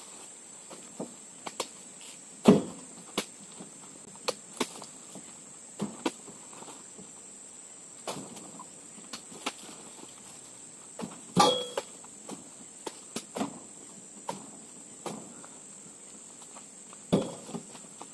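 Oil palm fruit bunches being heaved with a metal spike into a pickup truck's bed: scattered thuds and knocks, the loudest about two and a half seconds in and near the middle, where one gives a brief metallic ring. A steady high-pitched insect drone runs underneath.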